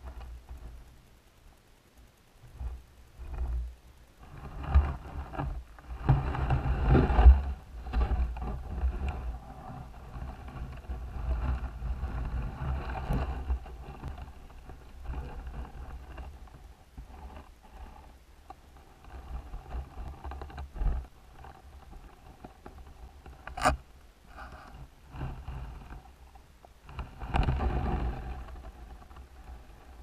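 Muffled audio from a camera submerged in a creek: low, uneven water noise with irregular scrapes and small knocks against the housing, swelling louder twice, and one sharp click about two-thirds of the way through.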